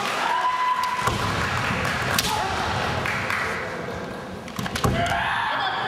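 Kendo fencers' kiai shouts and sharp strikes of bamboo shinai, ringing in a large hall. One long shout at the start, a flurry of noise with a sharp crack a couple of seconds in, then another sharp crack and a second long shout near the end.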